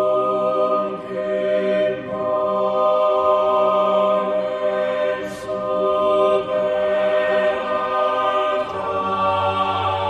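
Slow background music of sustained choral chanting: voices hold long chords that change about two seconds in and again near the end.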